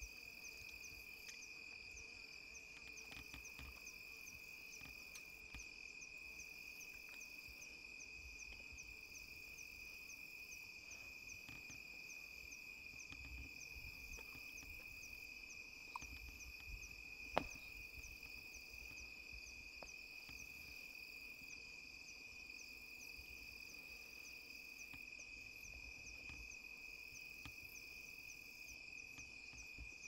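Night insect chorus of crickets: a steady high trill with a faster, regular pulsing chirp above it, and a single sharp click a little past halfway.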